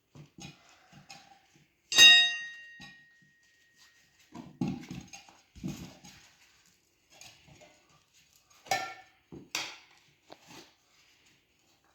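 Tire irons working a dirt bike tire onto its rim: irregular clinks and knocks of metal on metal and rubber, with one loud, ringing metal clank about two seconds in.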